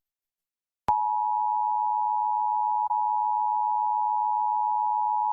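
Emergency Alert System attention signal, the steady two-tone alert of 853 and 960 Hz, starting with a click about a second in after a pause and holding steady. It marks the start of a Required Monthly Test broadcast, following the data header and preceding the spoken test message.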